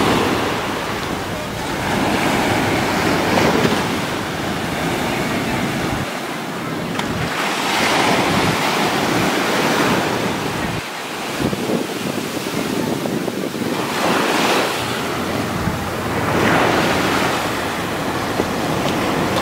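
Ocean surf breaking on a sandy beach and washing up the shore, the rush swelling and fading every few seconds. Wind rumbles on the microphone at times.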